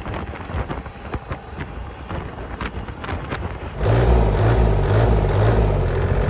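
Wind buffeting the microphone with irregular crackling, then, near the end, a sudden switch to a four-wheel-drive agricultural tractor's engine running loud and steady.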